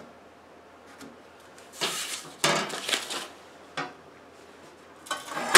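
Flat sheet-metal blank for an exhaust cone being slid and handled on a work surface. There are a few scraping, rattling noises about two to three seconds in and a louder one near the end.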